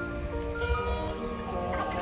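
Background music: long held notes that step from one pitch to the next, over a steady low rumble.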